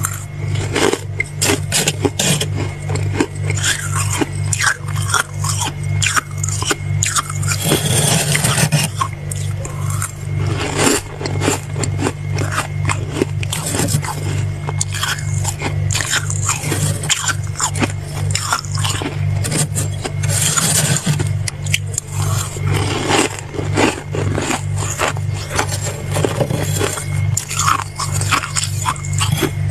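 Close-miked crunching of soft freezer frost: irregular bites, chewing and scrapes, dense and crackly, over a steady low hum.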